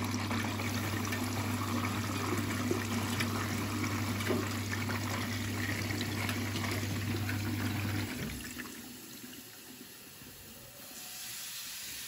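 Siemens washing machine taking in water through its detergent drawer: a steady rush of water with a low hum that cuts off suddenly about eight seconds in, leaving a fainter trickle.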